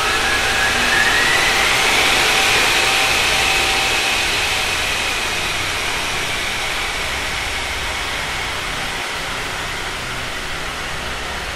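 Washing machine drum spinning up on its spin cycle: a motor whine rises in pitch and levels off about two seconds in over a steady rushing noise, then the whole sound slowly gets quieter.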